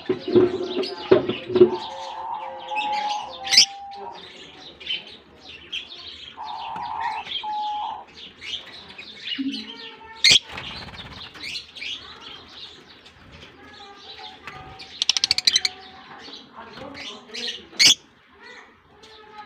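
Colony of lovebirds chirping and chattering, many short high calls overlapping. Two sharp clicks, about ten seconds in and near the end, and a quick buzzy rattle around fifteen seconds in.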